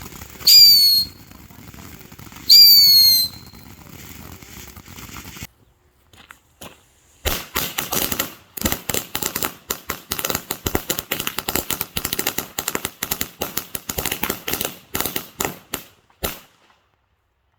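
Whistling fireworks screaming twice, each whistle about half a second to a second long and falling in pitch. After a sudden break, about nine seconds of rapid, irregular firecracker bangs that stop abruptly.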